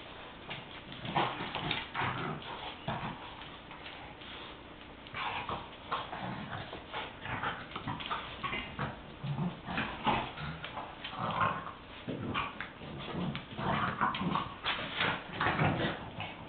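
Two French bulldogs play-fighting, with many short dog vocal sounds in rapid irregular bursts, busier and louder toward the end.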